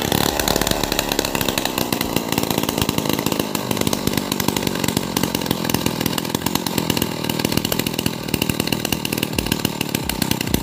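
STIHL two-stroke chainsaw engine running steadily at idle with a fast, even firing rhythm, warming up before cutting.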